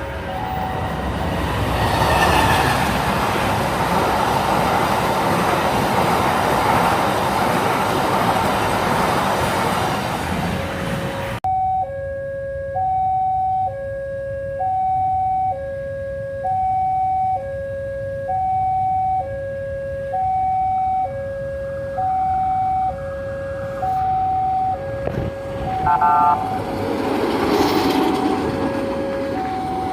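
A passing train's loud rolling noise, which cuts off abruptly after about eleven seconds to a railway level-crossing warning alarm alternating slowly between a high and a low electronic tone, about a second each. Near the end the noise of an approaching train rises under the alarm, with a brief horn note.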